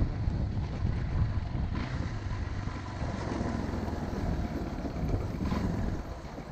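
Motorcycle engine running under way, a steady low rumble with road and air noise; it eases off somewhat about six seconds in.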